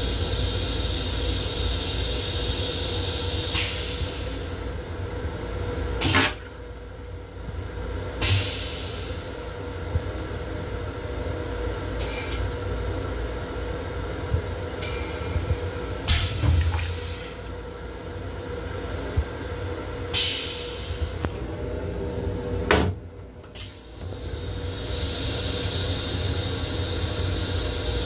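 Toilet in a Long Island Rail Road M7 railcar restroom going through its flush cycle: several hisses and whooshes of water and air over the steady low rumble of the train, with a sharp clack about three-quarters of the way through.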